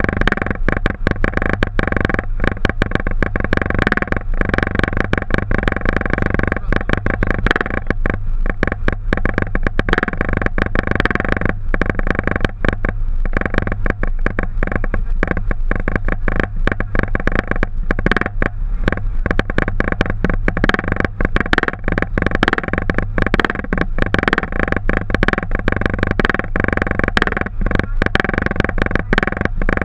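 Steady flight-deck noise of a Boeing 737: a continuous rush with a hum, broken by frequent brief dropouts.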